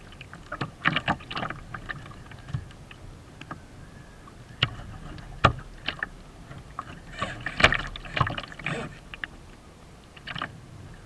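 Choppy waves slapping and splashing against the hull of a Kyosho Seawind radio-controlled sailboat, heard from a camera mounted on board: irregular sharp slaps and splashes, thickest about seven to nine seconds in.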